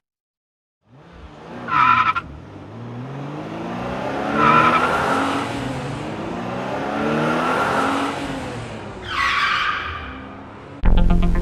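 Sports car sound effect: an engine revving, its pitch rising and falling, with three tyre squeals, about two seconds in, four and a half seconds in and nine seconds in. Electronic music cuts in near the end.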